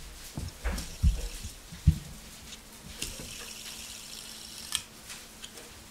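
Cheap LED fidget spinner being flicked and spinning between the fingers: a few soft knocks in the first two seconds, then a faint steady hum with a light hiss and occasional clicks.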